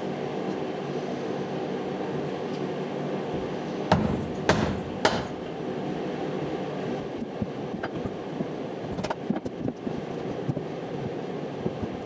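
A steady machine hum with three loud knocks about four to five seconds in and a few lighter clicks later.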